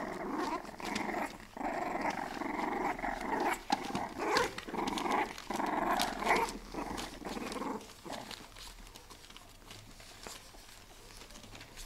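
Four-week-old bulldog puppies play-fighting, growling and grumbling in short rough bursts, with scattered scratches and rustles. It dies down after about eight seconds.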